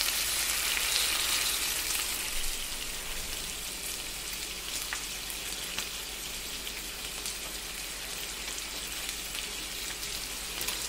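Slices of pork frying in a pan on a camp stove: a steady sizzle with scattered spits and crackles, loudest in the first couple of seconds.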